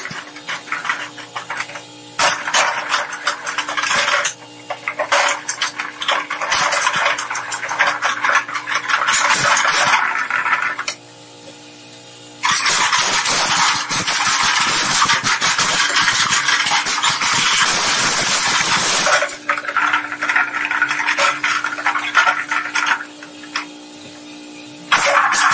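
Twin-shaft shredder's toothed blades crushing and tearing hard plastic: a dense, loud crackle of snapping and cracking plastic with sharp knocks. About 11 s in, and again near the end, it drops to the steady hum of the motor turning the empty blades, with further bouts of loud grinding in between.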